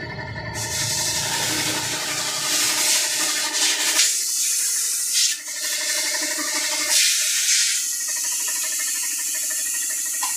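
Compressed air rushing from a hose into a tubeless motorcycle tyre as it is inflated on the rim to seat the beads, a loud hiss that starts about half a second in and surges several times. A steady machine hum runs underneath.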